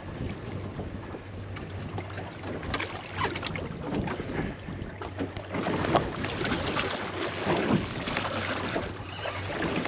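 Choppy sea water slapping and lapping irregularly against a small boat's hull, with wind buffeting the microphone.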